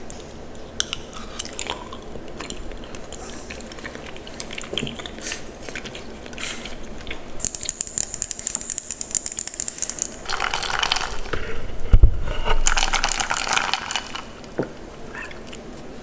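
Chewing mac and cheese: a run of small clicks and mouth noises, busier through the middle, with one dull knock about three-quarters of the way through.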